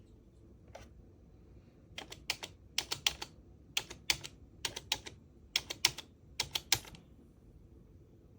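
A computer keyboard key, likely the space bar, pressed and released about six times at an even pace, each stroke giving a pair of sharp clicks: the key going down and then springing back up.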